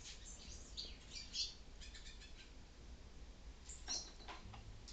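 Faint, short, high-pitched chirps of small birds, scattered in the first second and a half, with a brief louder rustle about four seconds in.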